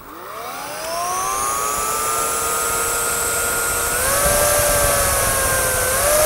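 Samsung Power Stick Pro VS8000 cordless stick vacuum switched on: its motor spins up with a rising whine to a steady high-pitched hum. It steps up in speed about four seconds in and starts rising again near the end as the turbo mode is held on.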